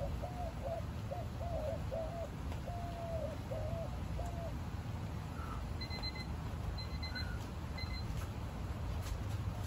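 Steady low background rumble. Over it, a bird calls a run of short, low repeated notes for the first three seconds or so. Faint, short, high-pitched beeps come a few times in the second half.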